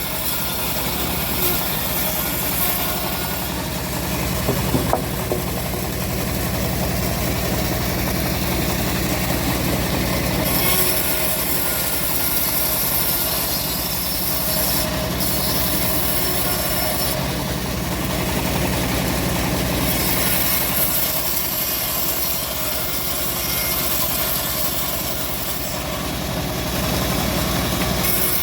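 Homemade engine-driven bandsaw running steadily while it rips through an old teak log, a continuous low engine hum under a hissing cutting noise that swells and eases several times.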